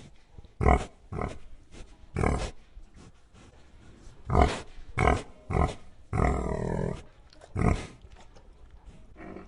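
Pig grunting: a series of short, irregularly spaced grunts, with one longer grunt of wavering pitch about six seconds in.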